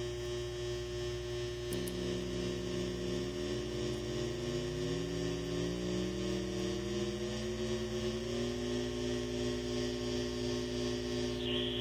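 Home-built six-voice pocket drone synthesizer, its voices mixed through XOR gates, sounding a steady chord of buzzy drone tones. About two seconds in, more tones join, and then several pitches glide slowly upward as the pitch knobs are turned.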